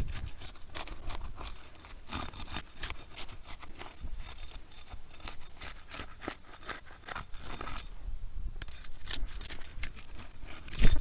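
Asphalt 3-tab shingle tabs being pried up and unsealed, the adhesive seal strips tearing loose with a dense run of irregular scraping and crackling. Low wind rumble on the microphone underneath.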